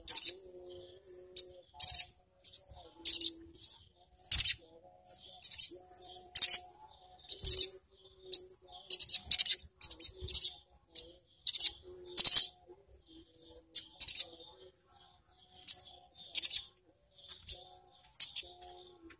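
Sogon (sogok ontong), a male olive-backed sunbird, calling in sharp, very high-pitched rattly bursts: the 'ngriwik' chatter, repeated irregularly about once or twice a second.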